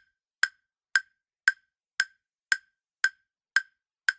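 Countdown-timer tick sound effect: short, sharp wood-block-like ticks, about two a second, evenly spaced, marking the time left to answer a quiz question.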